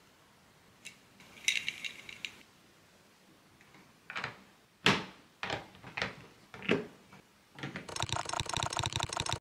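Plastic LEGO bricks and Technic parts clicking and snapping together by hand: a short rattly run of clicks, then five separate sharp clicks, then a fast, even rattling near the end.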